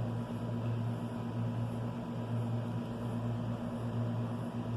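Steady low hum running unchanged, with a faint high tone above it.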